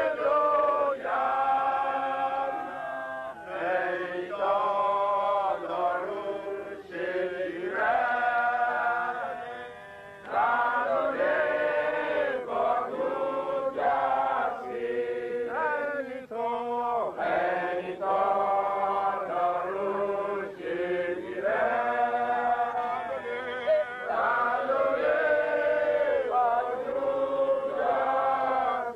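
Voices chanting a sung prayer in phrases of a few seconds each, with brief pauses between phrases.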